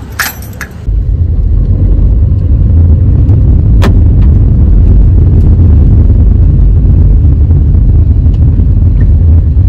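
Steady low rumble of a car on the move, heard from inside the cabin, with one sharp click about four seconds in.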